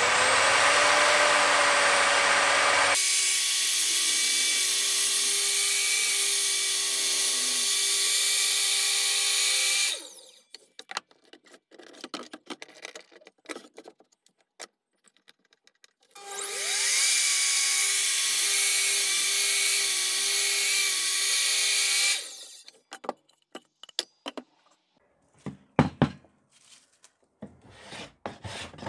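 Electric mitre saw running and cutting through an English elm board, a loud steady whine for about ten seconds. Then clicks and knocks as the board is moved and clamped, and the saw spins up and runs again for about six seconds, followed by more knocks and a sharp thump.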